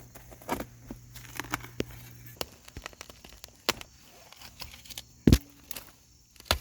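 A small shovel digging into dirt and roots: scattered crunches and scrapes, with one heavy thump about five seconds in.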